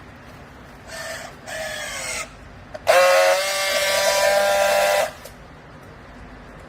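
A horn sounding three times: two short blasts, then a loud, steady blast lasting about two seconds, over a steady background hum.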